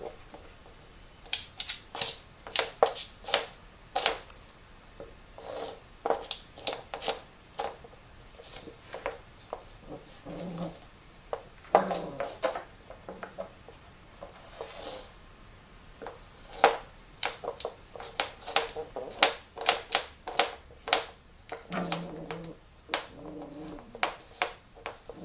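A small dog gnawing and knocking a chew bone about on a hardwood floor: many sharp clicks and knocks of teeth and bone on wood, coming in irregular clusters.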